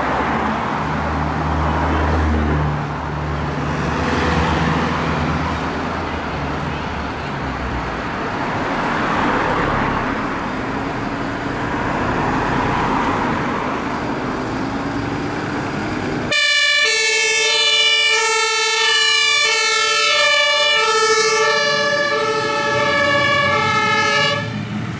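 Mercedes-Benz fire engine's diesel engine running as it moves off. About two-thirds of the way through, a loud two-tone siren comes in suddenly, alternating between two pitches, and stops shortly before the end.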